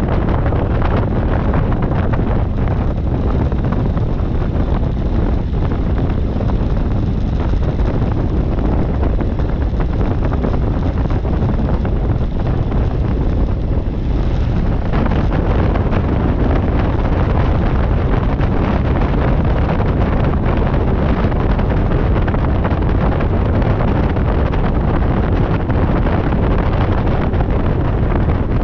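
Steady wind rumble on the microphone of an externally mounted camera, from the propeller wash of a light aircraft taxiing with its engine running.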